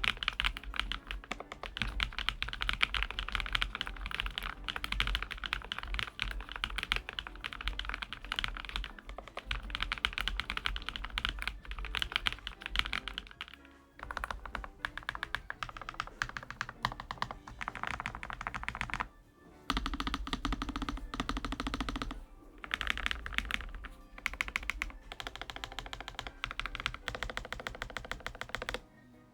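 Fast, continuous typing on a Lofree Flow Lite low-profile mechanical keyboard with full-POM switches, a steady stream of keystroke clacks broken by two short pauses about halfway through and about two-thirds of the way in. Background music plays under it.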